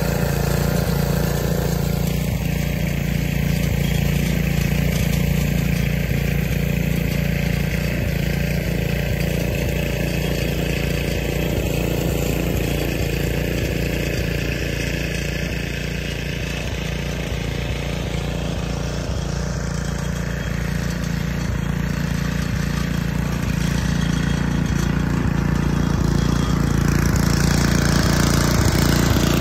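The small engine of a 1973 Snapper snowblower running steadily, clearing snow.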